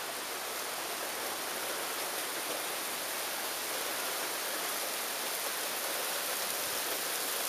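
Rain falling steadily onto an asphalt driveway and lawn, an even hiss that grows slightly louder as the shower picks up.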